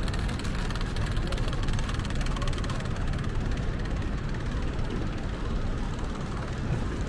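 Steady outdoor rumble of road traffic, buses and cars, with no single event standing out.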